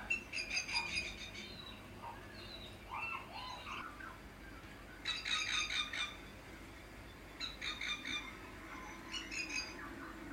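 African grey parrots calling: four short bursts of fast rattling chatter, with quieter whistled notes in between.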